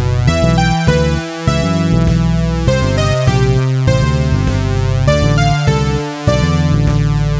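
Electronic synthesizer music: a sequence of short, stepped synth notes over a sustained bass, dipping briefly twice.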